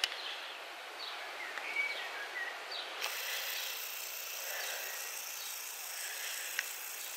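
Outdoor countryside background: a steady hiss with a few faint, scattered bird chirps. The hiss turns brighter about three seconds in, and there is a single faint click near the end.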